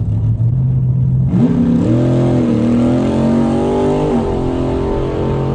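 Rail dragster's engine at full throttle on a drag-strip pass. Its pitch climbs, dips briefly and climbs again, then falls away about four seconds in, over a steady low hum.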